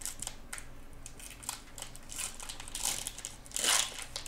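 Packaging crinkling in irregular rustles, as wrappers or plastic are handled, loudest a little before the end.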